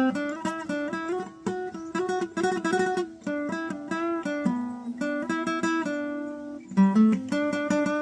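Acoustic guitar played fingerstyle: a quick run of single plucked notes and chords, with a sharper strum a little before the end.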